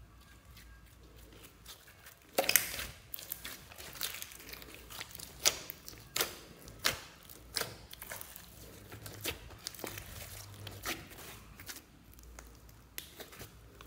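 A large mass of mixed glitter slime being folded and kneaded by hand, making sharp, sticky pops and crackles at irregular intervals that start a couple of seconds in.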